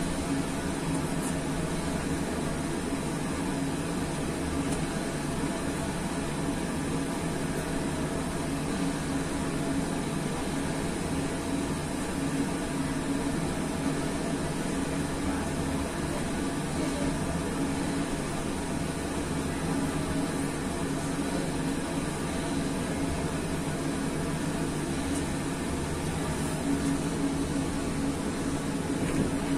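A five-bell church peal tuned in E-flat (the Italian 'concerto'), rung by rope, with all five bells sounding together in a continuous, overlapping ringing. The bells were cast by Pruneri of Grosio in 1892 and 1900 and by Ottolina of Seregno in 1951.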